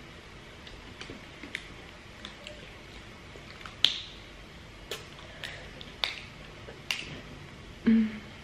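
Eating sounds from a seafood boil of crab legs: irregular sharp clicks and snaps, one or two a second, from shells cracking and mouth smacks. A short low hum comes near the end.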